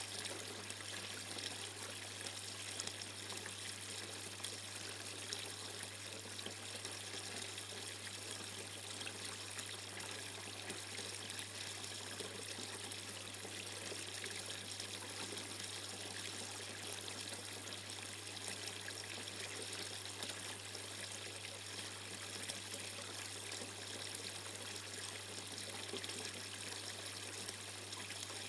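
Water pouring and trickling steadily down the tiers of a slate-effect cascading garden water feature, splashing into its pools. A steady low hum runs underneath.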